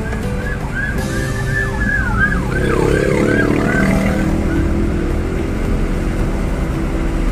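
A siren-like vehicle horn gives a fast run of short falling chirps, about three a second, fading out about halfway through, over the steady engine and road noise of traffic.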